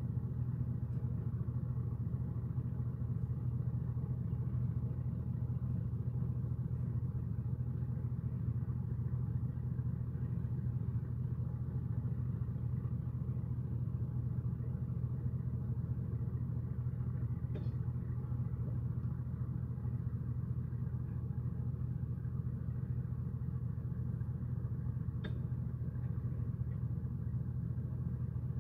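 A steady low mechanical hum from a running machine, unchanging throughout, with two faint clicks about two-thirds of the way through and near the end.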